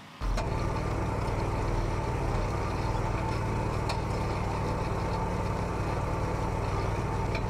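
Homemade mini tractor's engine running steadily under load while it pulls a single-bottom moldboard plow through the soil; it cuts in sharply just after the start.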